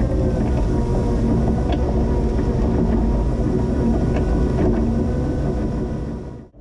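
Linde H20 forklift running steadily, with a low engine rumble and a steady whine from the drive over it. The sound drops away quickly near the end.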